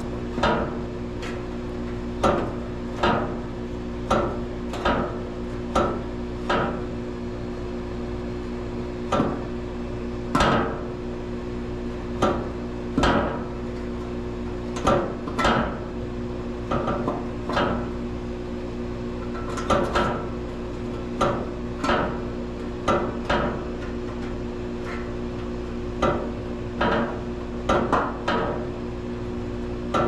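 Repeated sharp knocks or taps at an uneven pace, roughly one a second, over a steady low hum.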